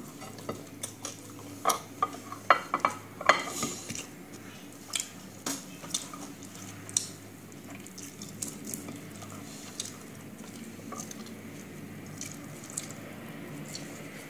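Spoon and fork clinking and scraping against a plate while eating: a run of sharp clicks, busiest in the first half and sparser later, over a faint steady hum.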